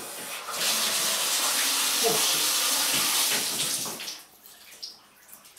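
Bathtub tap turned on, water running hard from the spout into the tub for about three and a half seconds, then cut off.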